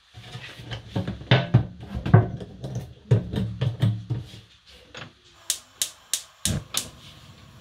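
Handling of a large metal tin of cooking oil on a kitchen counter: a run of bumps and knocks, then about six quick, sharp clicks near the end.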